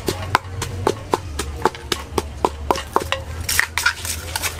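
Pestle pounding in a mortar for a Thai pounded salad, sharp regular strikes about four a second that stop about three seconds in, followed by softer scraping as the mix is stirred.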